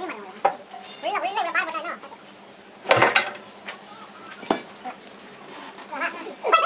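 Sharp metal clanks and knocks as steel pieces are handled: a few separate strikes over several seconds, the loudest about three seconds in.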